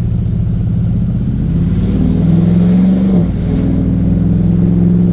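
Chevrolet Trailblazer SS's 6.0-litre LS2 V8 pulling away on light throttle. The engine note climbs, drops back about three seconds in, then holds steady.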